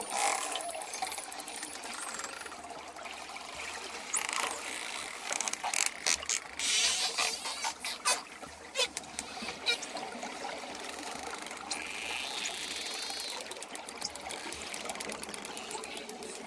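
Dolphin echolocation clicks: single clicks and rapid click trains, thickest in the middle, over a steady watery hiss.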